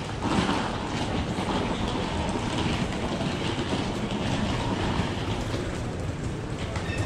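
Steady rumble of a rail vehicle, a tram or train, running close by.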